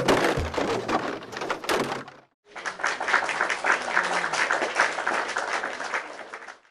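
Heavy thunks and clattering from a toy prize machine as it drops a boxed prize into its tray, lasting about two seconds. After a short break comes a dense crackling patter of many small taps, which fades near the end.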